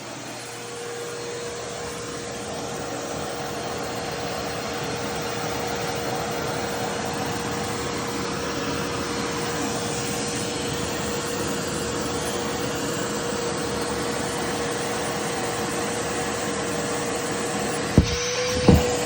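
Vacuum cleaner running steadily with a constant whine. Near the end there are two sharp knocks.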